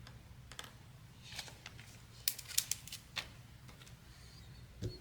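Scattered light clicks and taps from small kit parts being handled, the busiest cluster a little past halfway, over a low steady hum.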